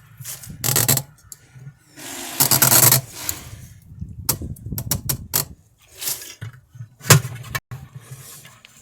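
Irregular scraping, rustling and clattering of a wrecked dishwasher's broken parts being handled, with a longer scrape a couple of seconds in and a sharp knock about seven seconds in.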